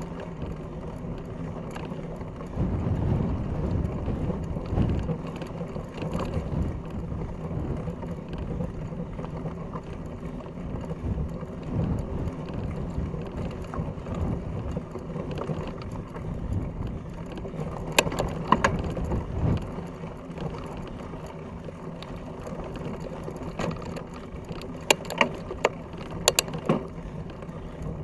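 Fat bike rolling over a dirt track, heard from a camera mounted on the bike: a steady low rumble of the wide knobby tyres and wind. Sharp clicks and rattles come about two-thirds of the way through and again several times near the end.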